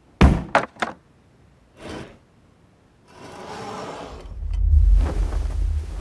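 Cartoon sound effects: three quick, loud knocks, a softer knock just before two seconds in, then a rattling that swells into a deep rumble.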